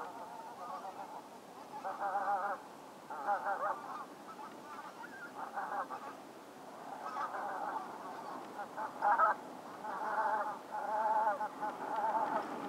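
A group of geese honking: clusters of calls about a second long, repeated every second or two with short pauses between.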